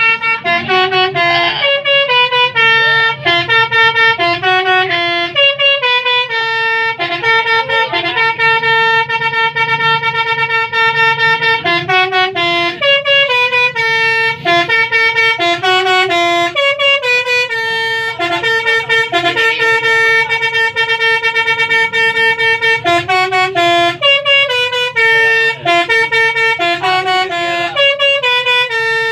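Indonesian bus 'telolet' musical horn playing a tune, its notes stepping up and down without a break over a steady low hum.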